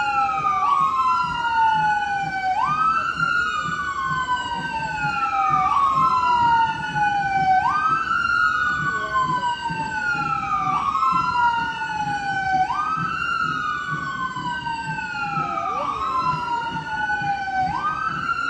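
Two sirens wailing out of step with each other, each sweeping up quickly and then falling slowly, repeating about every five seconds.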